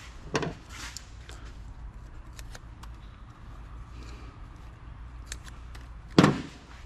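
Light clicks and ticks of small metal and plastic parts being handled as a CD-ROM drive is taken apart, with a sharper knock about six seconds in.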